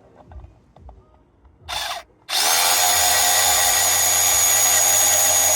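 Cordless power tool undoing an engine mount bolt: a short blip, then a steady run of about four seconds with a high motor whine that spins up quickly and winds down at the end.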